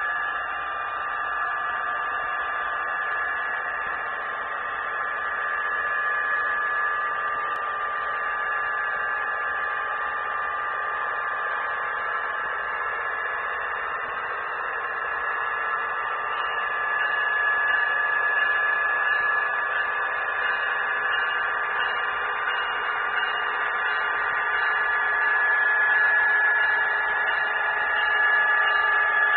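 Steady electrical hum and whine from a model railroad layout, with a few fixed high tones; it grows a little louder over the last dozen seconds as a model Amtrak train approaches the station.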